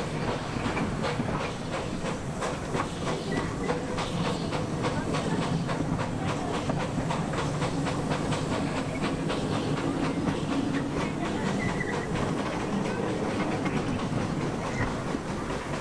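Miniature park railway in motion, heard from an open carriage: a steady rumble of the running train with rapid, continuous clicking of wheels over the rail joints.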